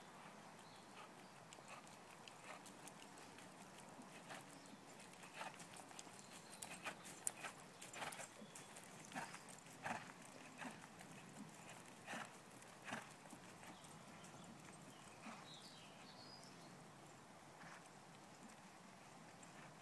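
Faint hoofbeats of a horse moving over a chipped arena surface. Irregular thuds are loudest in the middle, as the horse jumps a fence close by, then fade as it moves away.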